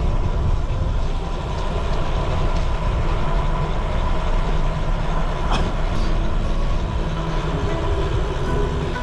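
Wind rushing over the microphone of a camera on a moving road bike, with tyre noise on asphalt: a steady low rumble at about 30 km/h that eases a little as the bike slows near the end. A couple of brief clicks about halfway through.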